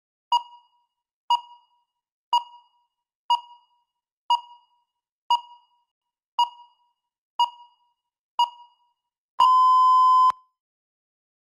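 Electronic countdown timer beeping: nine short beeps of the same pitch, one a second, then one long beep about a second long marking the end of the preparation time and the start of the speaking time.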